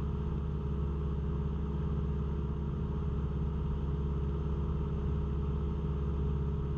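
Cessna 172's engine and propeller droning steadily in cruise flight, heard through the cockpit intercom, with a single click at the very start.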